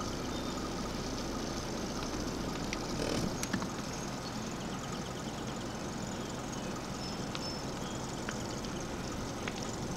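A steady low engine rumble over open-air ambience, with a few faint high chirps and ticks and a brief louder bump about three and a half seconds in.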